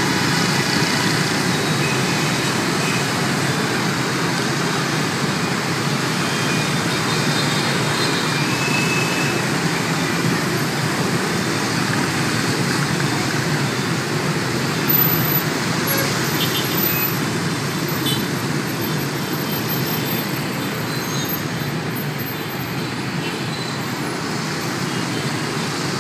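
Dense motor-scooter and motorbike traffic, with some cars, streaming through a busy intersection: a steady rush of small engines and tyres, a little quieter near the end.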